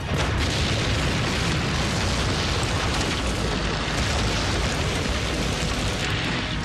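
A bomb explodes inside a steel shipping container. A sudden blast at the start gives way to a long, steady rumbling blast-and-fire noise for several seconds.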